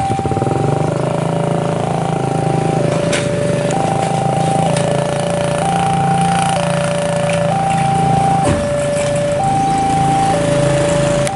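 Railway level-crossing warning alarm sounding a two-tone high-low signal, each tone held about a second, meaning the crossing is closing for an approaching train. A motorcycle engine runs underneath.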